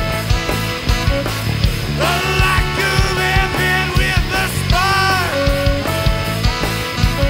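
Indie rock band playing live: drums keep a steady beat under bass and electric guitar, while saxophone and trumpet hold long notes that drop off at their ends.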